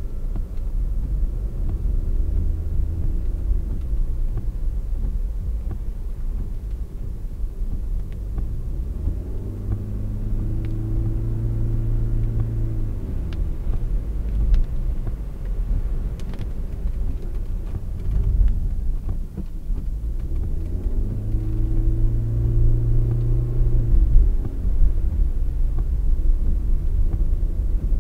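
Steady low rumble of a car driving on a wet road, heard from inside the cabin. Twice, about nine and twenty-one seconds in, a humming tone rises, holds for a few seconds, then falls away.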